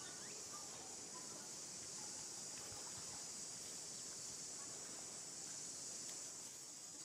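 Steady high-pitched drone of an insect chorus, with a few faint short chirps scattered through it.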